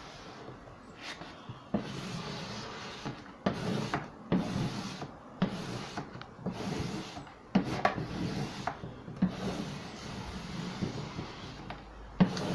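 Wallpaper being rubbed and scraped flat against a bookcase's back panel by hand and with a plastic smoothing tool, working out air bubbles, with several short knocks of the hands and tool against the wooden cabinet.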